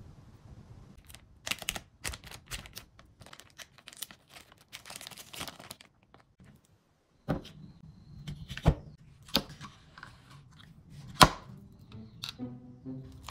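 Kitchen prep handling sounds: scattered taps, clicks and short rustles, with a brief silence midway and two sharp knocks, the loudest, in the second half.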